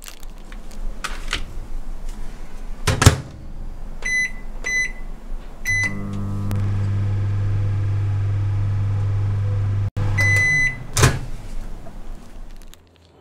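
A plastic food wrapper crinkling as it is torn open, with a loud sharp click about 3 seconds in. A microwave oven's keypad beeps three times, then the oven runs with a steady low hum for about four seconds; a longer beep sounds as it stops, followed by a click of the door opening.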